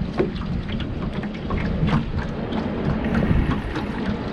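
Wind rumbling on the microphone on a small boat, with scattered small knocks and splashes.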